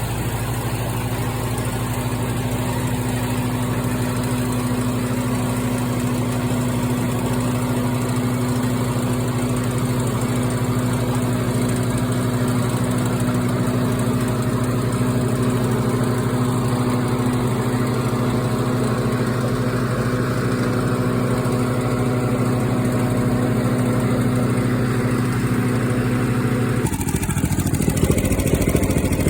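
Edamame harvester's engine running at a steady speed. Near the end the steady hum changes.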